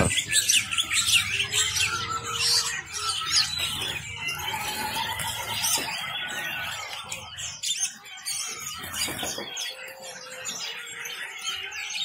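Many caged birds chirping at once: a chorus of short, overlapping high calls.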